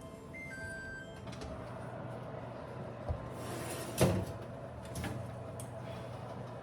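Handling noises over a steady low hum: a few short tones in the first second or so, a low knock about three seconds in, a loud sharp clack about four seconds in and a softer clack a second later, of the kind made by a cupboard or door closing.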